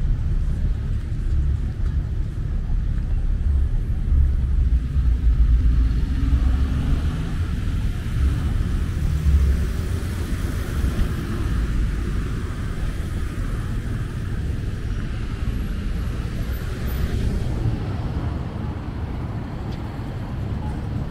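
Highway traffic passing, a steady low rumble of engines and tyres. The tyre hiss swells through the middle as a vehicle goes by and falls away sharply near the end.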